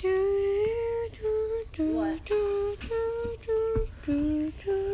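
A person humming a short tune: about eight held notes with brief breaks between them, mostly on one or two pitches with a lower note near the middle and another just after the middle.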